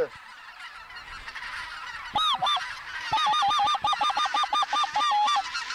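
Geese honking: a faint chatter of a distant flock, then two loud honks about two seconds in, followed by a fast, even run of short honking clucks, roughly nine a second.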